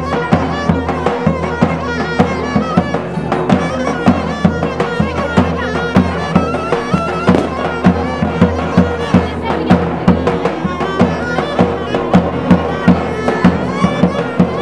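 Davul and zurna playing Turkish folk wedding music: a shrill, wavering reed-pipe melody over heavy drum strokes about twice a second.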